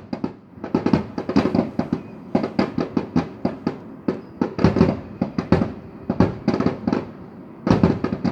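Fireworks going off in rapid succession: a dense run of sharp bangs and crackles, with short lulls about four seconds in and again near the end.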